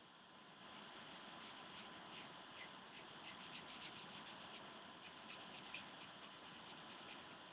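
Black felt-tip pen scribbling on paper while colouring in: faint, quick scratchy strokes, several a second, starting about half a second in.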